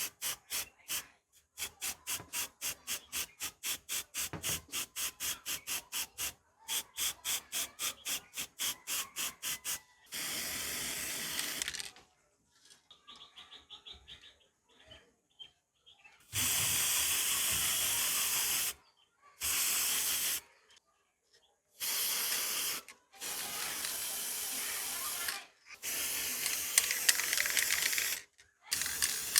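A run of quick, even rubbing strokes, about three a second, for the first ten seconds. Then an aerosol spray can sprays paint in several short bursts of steady hiss, each one to two and a half seconds long, with brief pauses between them.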